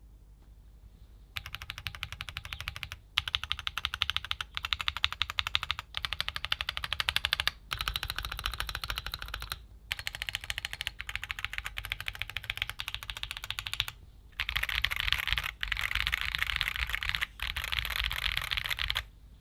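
Keychron Q1 Pro mechanical keyboard being typed on fast. The rapid keystrokes come in bursts, broken by short pauses every second or two; they start about a second and a half in.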